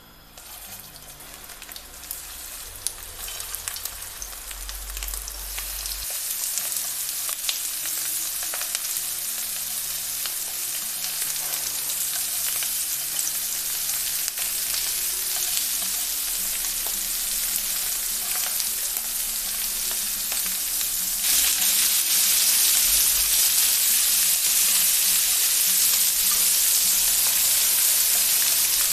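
Ground-beef burger patties sizzling in an oiled ridged grill pan, the sizzle building as more patties are laid on and growing louder about two-thirds of the way through.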